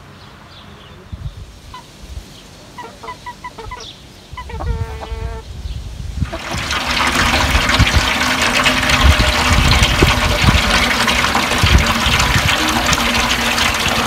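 Water starts rushing loudly about halfway through and keeps running steadily, with a low hum under it. Before it, a chicken gives a short call and small birds chirp.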